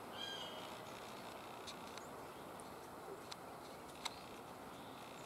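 Faint steady outdoor background noise with a short bird chirp just after the start and a few faint ticks later on.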